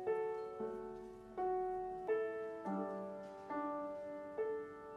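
Background music of soft piano notes, struck singly or in small chords about every three-quarters of a second, each ringing and fading before the next.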